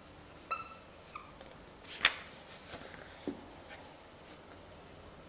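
Marker tip squeaking on a whiteboard twice as a word is written. A sharp click about two seconds in is the loudest sound, and a soft knock follows a little over a second later.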